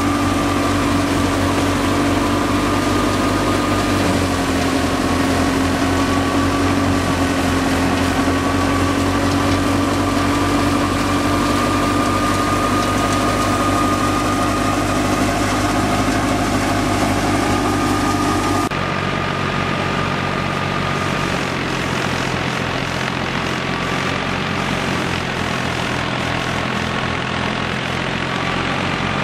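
Tractor-powered wheat thresher running at speed together with the tractor engine driving it: a loud, steady mechanical hum with a high whine over it. The sound shifts abruptly about two-thirds of the way through, losing most of the whine.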